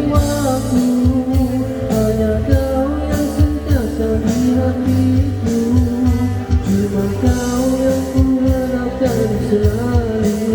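Music: a Malay pop-rock ballad with a gliding melody line over a band accompaniment and a steady drum beat.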